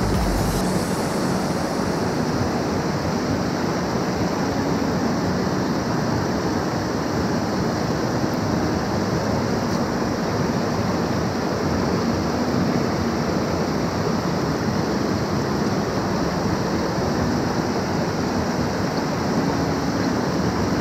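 Steady rush of a stream pouring over a low weir, the water high and fast after heavy rain.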